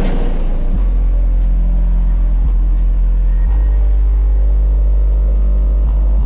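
Car-audio subwoofers, JVF 4.0 18-inch drivers driven by Taramps Bass 8K amplifiers at about 32,000 watts, playing a very loud, deep, steady bass note that grows stronger about a second in.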